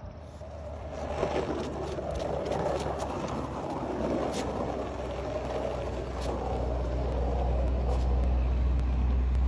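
Skateboard wheels rolling on asphalt: a steady rumbling hiss with a few sharp clicks, growing louder over the first second or so and then holding steady.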